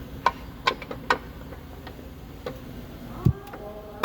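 A handful of sharp, irregularly spaced clicks and taps, with a low thump about three seconds in: hand tools knocking against metal during under-chassis car repair.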